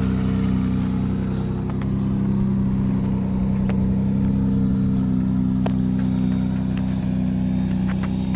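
Sand rail buggy engine idling steadily, with a few light clicks over it; the owner says it still has a slight misfire.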